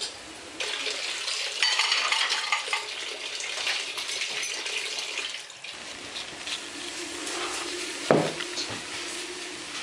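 A spoon scraping and clinking against a bowl, with one louder knock about eight seconds in.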